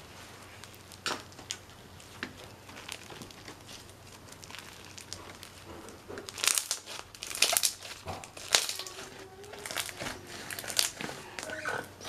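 Thick, crunchy slime with blue beads being stretched and squeezed by hand, giving off crackling, popping clicks. A few scattered pops at first, then dense, louder crackling from about halfway through.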